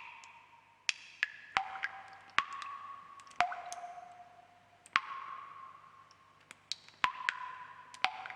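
Water drops falling one at a time into water, each a sharp plink followed by a short ringing tone. About ten drops land at uneven intervals, some close together and some a second or two apart.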